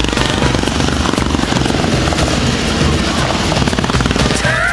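Small engine of a ride-on kart running steadily, a fast even chugging of firing pulses. A voice starts right at the end.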